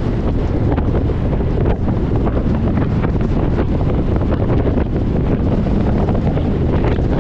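Wind buffeting the microphone: a steady, loud, low rumble with no letup.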